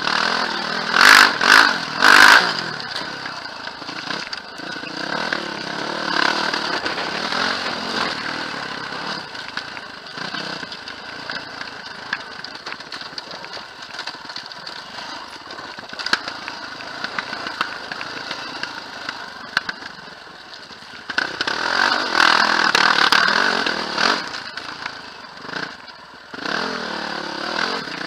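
Quad bike engine running and revving as it rides over a rough forest track, with clatter from the bumpy ride; it surges louder about a second in and again past twenty seconds.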